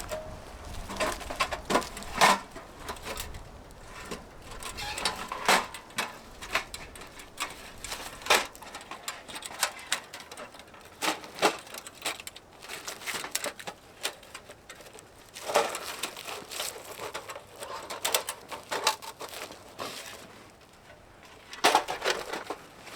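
Irregular crunching footsteps in snow.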